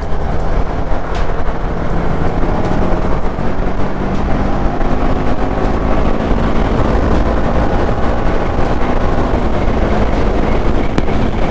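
TVS Apache RR310's single-cylinder engine running steadily as the motorcycle accelerates at highway speed, heard from the rider's position with wind and road noise over the microphone.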